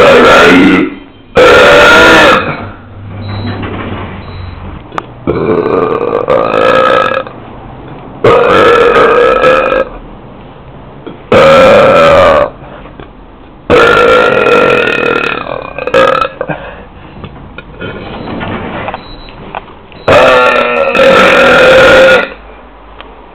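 Loud belches one after another, about eight in all, each lasting one to two seconds with short pauses between.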